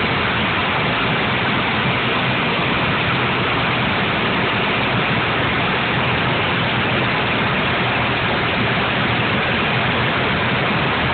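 Steady roar of an aircraft's engines and rushing air heard inside the cabin, unchanging throughout, as the plane descends on approach to land.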